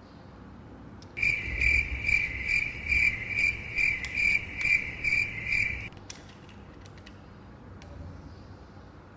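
Small camera's electronic beeper sounding a high, evenly pulsing beep, about two or three beeps a second, for roughly five seconds. It starts about a second in and cuts off sharply.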